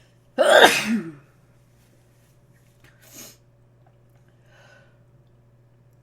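A person sneezing once, loud and sudden about half a second in, with a voiced ending falling in pitch; the sneezer is congested. A short breathy sound follows about three seconds in, and a fainter one near the end.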